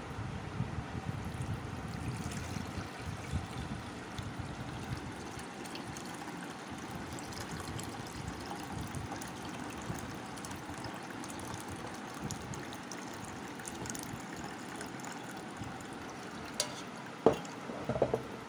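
Thin raw-mango drink mixture pouring through a steel mesh strainer, liquid trickling and splashing steadily into the pot below. Near the end, a sharp knock and a few clinks of a steel spoon against the strainer.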